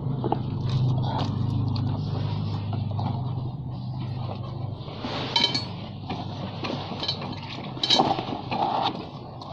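Rubber inner tube being worked by hand into a scooter's rear tyre: rubbing and small knocks, with two short squeaks about five and eight seconds in. Under it is a low steady hum that fades during the first half.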